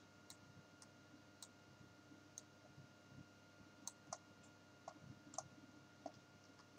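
Near silence, with faint, irregular clicks from computer controls (mouse buttons and keys) about ten times, over a faint steady electrical hum.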